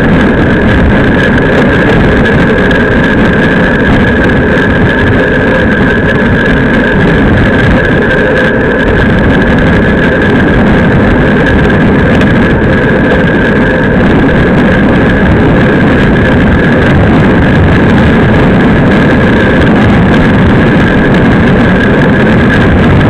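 Steady rush of wind on the microphone and tyre roar from a road bike moving at race speed, with a steady high tone running through it.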